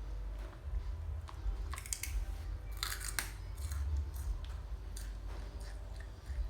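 Crunchy cheese snack being chewed, with irregular crackles that come thickest about two to three seconds in.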